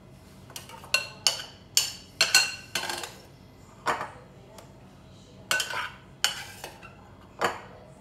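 A kitchen utensil knocking and clinking against a dish, about ten irregular strikes, each with a short ring.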